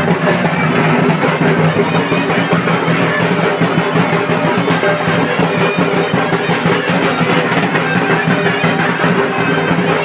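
Loud music with a steady beat of drums and plucked strings.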